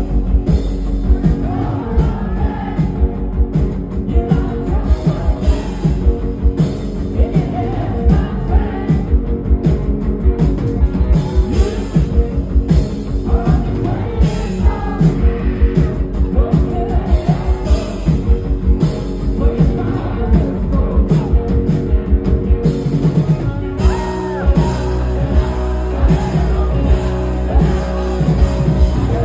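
A rock band playing live, with a male singer's lead vocal over a steady drum beat and bass.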